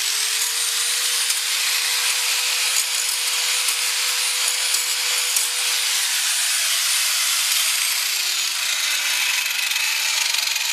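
Angle grinder sharpening the rusty edge of a Snapper riding mower's steel blade in place under the deck: a steady motor whine over a harsh grinding hiss. Near the end the grinder is let off and winds down, its whine falling in pitch.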